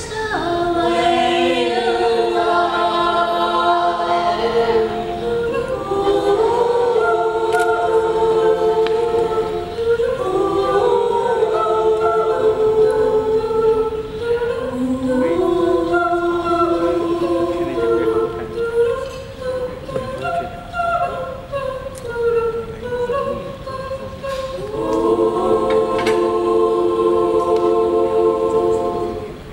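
Mixed a cappella choir of men's and women's voices singing slow, sustained chords that change every second or two. Near the end it holds a long final chord, which cuts off just before the end.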